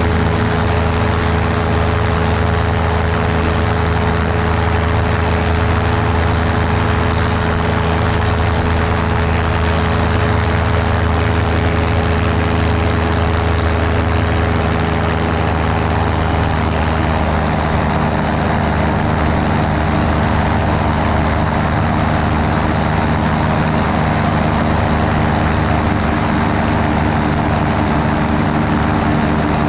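Helicopter running steadily with a constant, loud mechanical drone; its pitch shifts slightly about seventeen seconds in.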